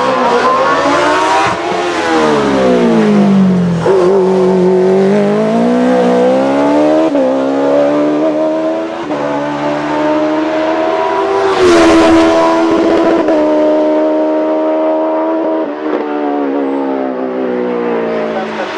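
Suzuki GSX-R 1300 inline-four motorcycle engine in a hillclimb race car, revving high and changing gear, its pitch repeatedly climbing and then stepping or sliding down. A brief loud rasp of noise cuts across it about two-thirds of the way through.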